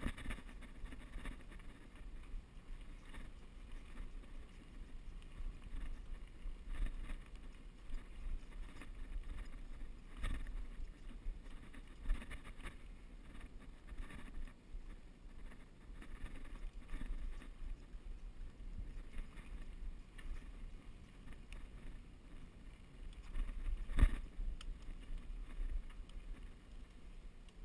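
A mountain bike rolling fast over a dirt trail, heard from a camera on the bike: a steady low rumble with wind buffeting the microphone and scattered sharp knocks and rattles as it hits bumps, the loudest knock a few seconds before the end.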